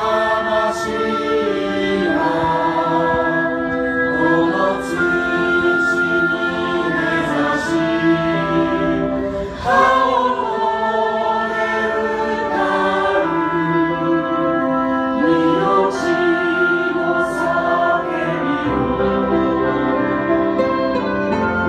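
A choir of many voices singing a song together, holding long sustained notes.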